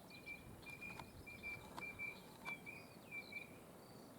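A bird calling: a run of about seven short whistled notes on one pitch, roughly two a second, with fainter higher chirps, over a low wind rumble.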